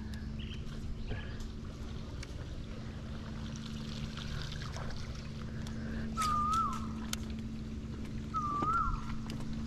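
A bird's whistled call, a short level note that dips at the end, sounds twice about two seconds apart in the second half, over a steady low hum.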